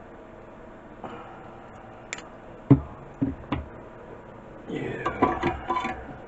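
Small metal hand tools knocked and set down on an electronics workbench: four sharp separate clicks, then a short burst of rattling clicks and clatter near the end.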